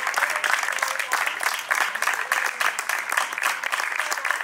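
Audience applauding: steady, dense clapping with a few voices underneath.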